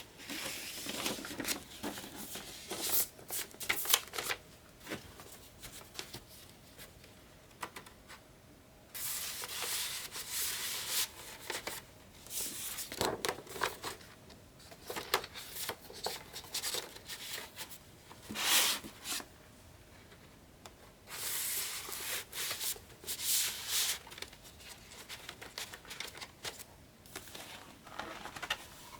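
Vinyl record packaging handled by hand: card and paper sleeves sliding and rustling, with scattered taps and clicks. The handling comes in three longer bouts with quieter pauses between.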